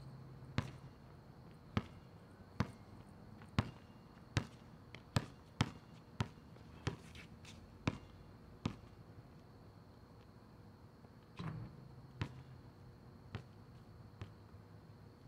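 Basketball dribbled on an outdoor asphalt court: sharp single bounces about once or twice a second for the first nine seconds, then fewer and fainter ones. A heavier, lower thud comes about eleven and a half seconds in.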